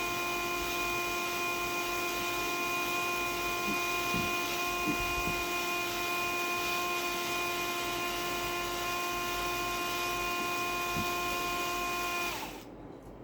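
Electric drill turning a cobalt drill bit, its motor running with a steady whine. About twelve seconds in the trigger is released and the motor spins down, falling in pitch until it stops.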